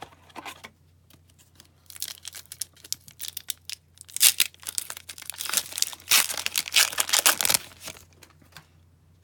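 Foil wrapper of a hockey card pack being torn open and crinkled by hand, a dense crackle starting about two seconds in and stopping near the end.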